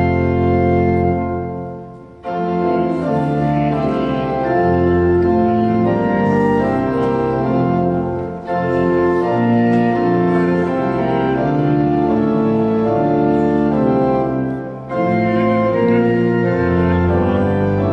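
Church pipe organ playing slow, held chords. The sound dies away about two seconds in, and there are brief breaks between phrases near the middle and again toward the end.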